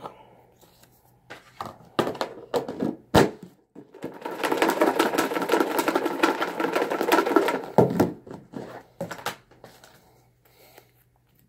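Paper name slips rattling inside a plastic tub with a snap-on lid as it is shaken hard for about four seconds, with sharp knocks from the tub being handled just before and just after.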